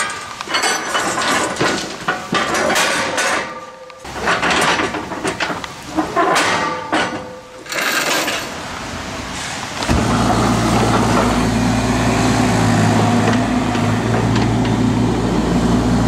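Metal clanking and clinking of tie-down chains and binders being released on a steel trailer. About ten seconds in, a Bobcat E32 mini excavator's diesel engine comes in, running steadily.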